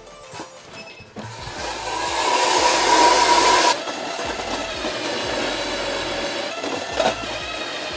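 A small electric motor runs with a steady whine for about two and a half seconds, then cuts off abruptly, leaving a quieter steady hum.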